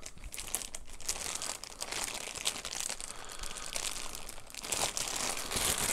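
Clear plastic poly bag crinkling and rustling as it is handled and picked open, with many small scattered crackles.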